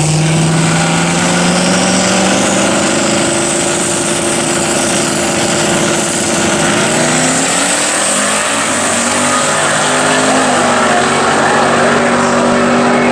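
Drag-racing car engine running hard down the strip under full acceleration, its pitch climbing steadily. About seven seconds in there is a break as it shifts gear, and the pitch climbs again.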